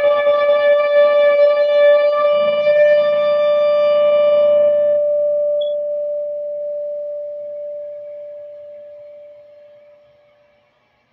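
Electric guitar, a Strat-style partscaster played through a Peavey Bandit 112 TransTube amp, holding one long sustained note rich in overtones. About five seconds in the upper overtones drop away and the remaining note slowly fades out, dying just before the end.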